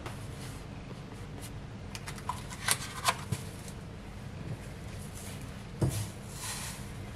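Handling sounds from a cardboard salt carton, a wooden cup and a steel saucepan: a quick cluster of sharp clicks and taps, a single knock about six seconds in, then a brief rustle.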